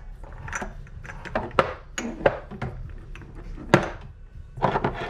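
Spice jars clinking and knocking against one another as they are shuffled around in a drawer: a dozen or so irregular sharp clicks, the loudest about three-quarters of the way in.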